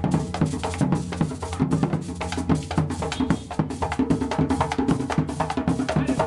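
Background music with percussion and a steady drum beat.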